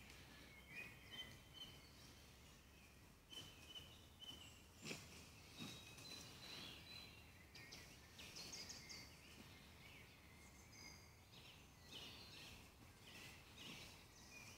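Faint woodland birdsong: several small birds chirping and trilling over a low outdoor hush, with a couple of soft clicks about five seconds in.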